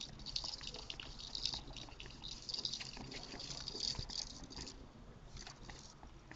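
Quick, irregular swishes and slaps from two martial artists sparring in a choreographed kung fu set: uniform fabric snapping, hand and foot strikes, and shoes on the mats.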